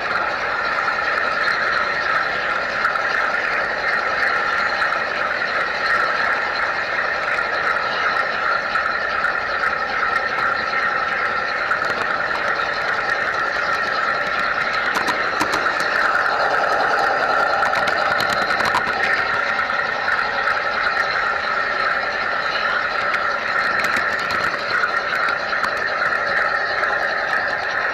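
G scale model train running along garden track, heard from a camera riding on the train: the steady running noise of its wheels on the rails and its drive, with a few light clicks about halfway through.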